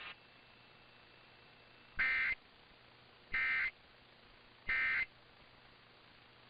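Emergency Alert System end-of-message signal: three short bursts of buzzing digital data tones, each about a third of a second long and evenly spaced about 1.3 s apart, starting about two seconds in. They mark the end of the emergency alert.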